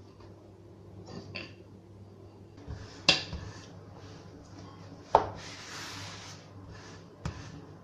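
Hands pressing and spreading a ball of rice-flour dough flat on a floured stone countertop, with a soft brushing rub and three sharp knocks about two seconds apart.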